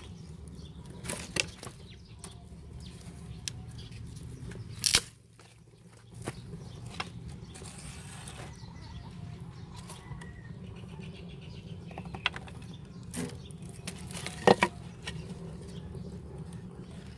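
Wooden sticks and planks knocking and scraping as they are laid into the firebox of a clay-and-brick wood stove: a few separate sharp knocks, the loudest about five seconds in and again near the end, over a steady low background hum.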